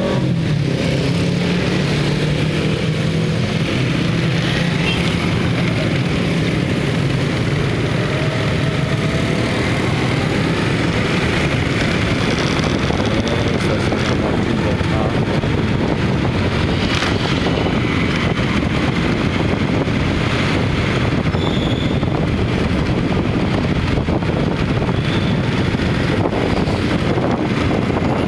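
Steady vehicle and road noise on a rain-wet road, with wind rushing on the microphone while on the move.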